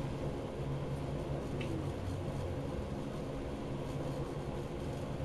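Room tone: a steady low mechanical hum with a faint hiss.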